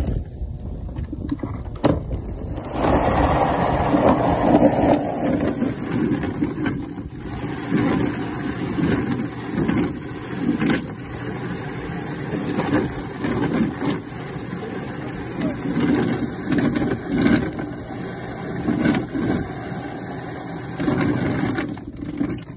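Homemade barrel-type chicken plucker running, its motor spinning the plate while the scalded chicken rubs and thumps against it and its feathers come off. It starts about three seconds in and cuts off near the end.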